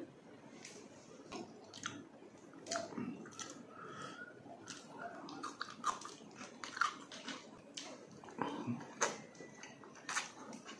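Close-up chewing and wet mouth clicks and smacks of someone eating vinegar-braised tuna jaw (paksiw na tuna panga) by hand, with soft squishing as fingers pull the fish flesh apart.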